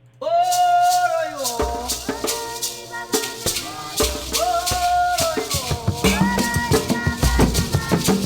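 African-style music played from a children's sound book: long held notes, the first one sliding down at its end, over a steady shaker rhythm and low drum beats.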